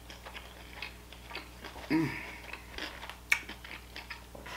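Close-up mouth sounds of a person chewing food, with a short hum falling in pitch about two seconds in and a single sharp click a little after three seconds.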